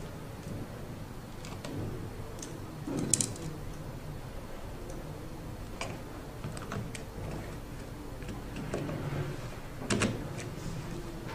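A small screwdriver and tiny M2×5 machine screws clicking and ticking against a robot's metal chassis as a camera mount is screwed on. Scattered light clicks, with sharper ones about three seconds in and near the end.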